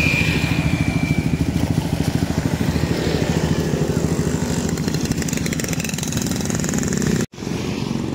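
Motorcycle engine running steadily close by, with a fast, even pulsing; the sound cuts out abruptly for a moment about seven seconds in.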